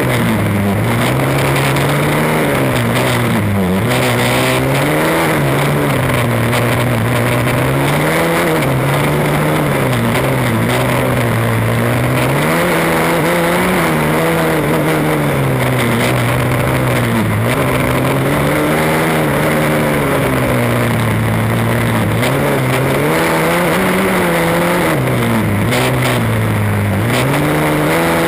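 Formula Student race car's combustion engine under hard driving, heard on board: the engine note rises and falls over and over as the car accelerates between cones and slows for the turns.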